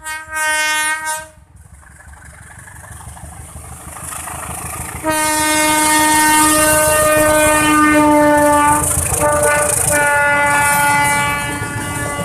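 Freight train hauled by two CC 201 diesel-electric locomotives passing close by and sounding its horn: a blast that ends about a second in, engine and rail noise growing louder, then a long horn blast about five seconds in, a short break, and a further, slightly lower blast. Near the end the tank wagons' wheels clatter over the rail joints.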